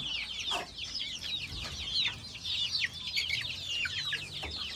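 A brood of chicks peeping without pause while they feed, many short, high, falling cheeps overlapping one another.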